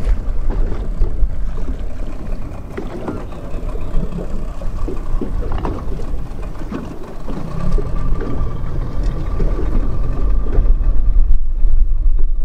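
Wind buffeting the microphone and water slapping the hull of a small open fishing boat at sea, with scattered knocks on the boat. About halfway through, a steady engine hum comes in and grows louder.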